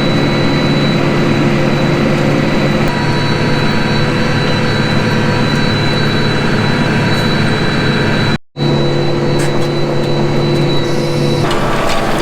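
Farm tractor's diesel engine running steadily under way, with a steady high whine above the engine note. The sound cuts out for a split second about eight and a half seconds in.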